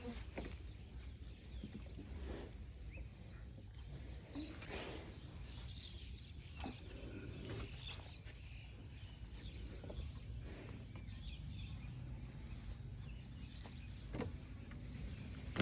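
Faint farm animal sounds over a steady low rumble, with a few short knocks scattered through.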